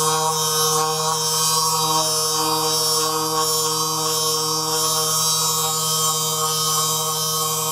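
Handheld percussion massage gun running against the back muscles: a steady electric-motor buzz with a rapid pulsing beat, holding one pitch throughout.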